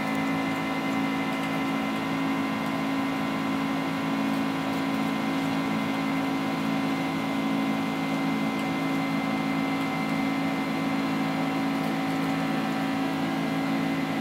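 Cabin noise of a Boeing 767-300ER in the climb after take-off, its General Electric CF6-80C2 turbofans running steadily at climb power. A constant hum with steady tones runs over the rush of air past the fuselage.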